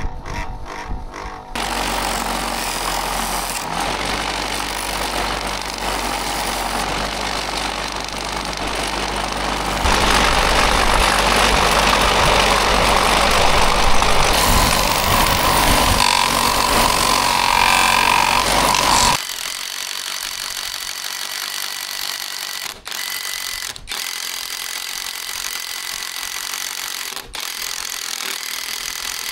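Loud, steady machine noise that grows louder partway through and cuts off about two-thirds in. It gives way to a cordless brushless drill boring into a plywood disc, which stops briefly a few times.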